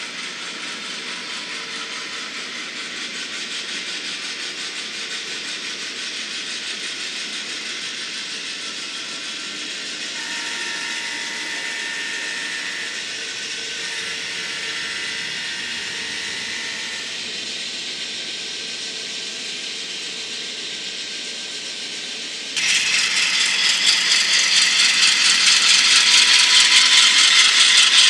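N-scale model diesel locomotives running along the layout track: a steady mechanical rattle of the small motors and wheels. About three-quarters of the way through it suddenly becomes louder and brighter, with a fine even ripple.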